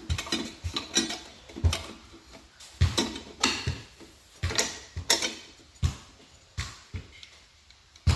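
Irregular sharp metal clicks and knocks, about a dozen, as parts of a lawn tractor's electric PTO clutch assembly are handled and fitted onto the engine.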